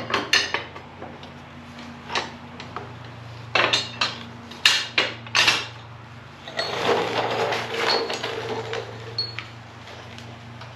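Metal gusset plate being handled and fitted onto the UTV's chassis tubes: a string of sharp metallic clanks and knocks, then a couple of seconds of scraping and rattling as it is worked into place, over a steady low hum.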